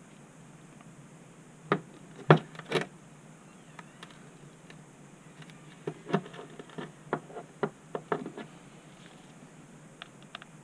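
Sharp clicks and knocks of small hand tools and a phone being handled on a work surface: three loud knocks about two seconds in, then a run of about ten lighter clicks in the middle.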